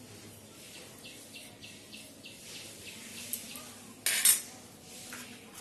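Steel spoon scraping and knocking against a stainless-steel bowl as a thick paste is spooned onto chicken, with one sharp metallic clatter about four seconds in.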